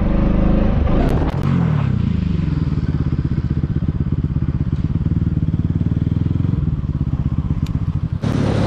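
Bajaj Pulsar NS200 single-cylinder engine rising in a short rev about a second and a half in, then idling with an even, pulsing beat.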